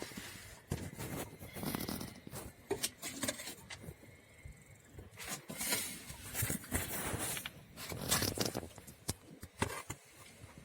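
Irregular rustling and scraping with a few sharp knocks: a person squeezing into a tight space under a car, handling the camera as they go.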